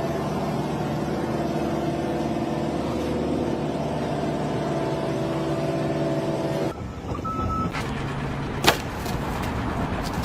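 An engine running steadily for about seven seconds, then a quieter stretch with one sharp click near the end.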